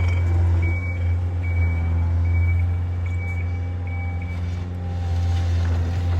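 Tri-axle dump truck's diesel engine running while its reversing alarm beeps about once a second as it backs up; the beeping stops a little past halfway.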